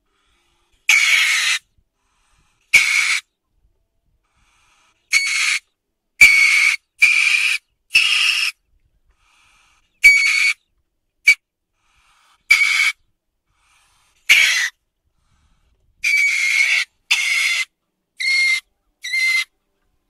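Weasel giving a series of short, high-pitched calls, about fourteen in all, unevenly spaced with dead silence between them.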